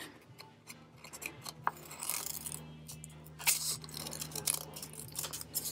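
Scissors snipping through folded paper in a series of short, uneven cuts with small pauses between, trimming a curve.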